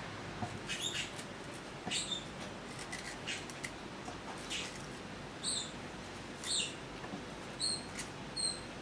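Knife slicing pieces of galangal root held in the hand, the pieces dropping into a stainless-steel chopper bowl: short, sharp, high-pitched ticks and squeaks at irregular intervals, about one a second.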